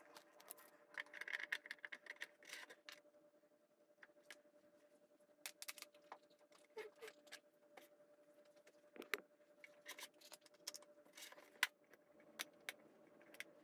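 Faint handling noise: a brief rustle of protective plastic film being peeled off a sheet about a second in, then scattered light clicks and taps as things are handled on the desk. A faint steady hum runs underneath.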